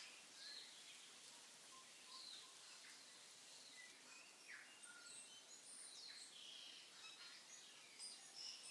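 Near silence: faint room hiss with scattered faint short high chirps.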